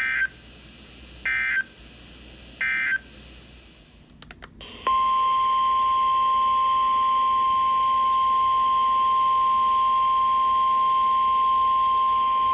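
Three short Emergency Alert System (SAME) data bursts about 1.4 s apart, the end-of-message code that closes the preceding warning. After a couple of faint clicks, a steady single-pitch alert tone begins about 5 s in and holds on: the NOAA Weather Radio 1050 Hz warning alarm that comes before the next warning.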